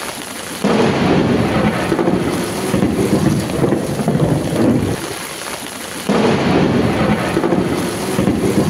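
Heavy downpour with thunder rumbling. A deep rumble sets in suddenly under a second in, eases off around five seconds, and comes in suddenly again about six seconds in.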